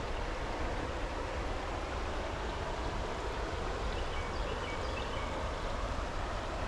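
Steady rushing of stream water running, over a low rumble, with a few faint high chirps about halfway through.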